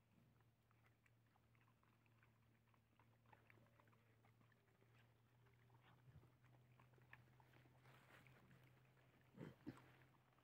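Faint sounds of several dogs eating from a shared trough: scattered small clicks of chewing and lapping, over a steady low hum. Two short louder knocks come near the end.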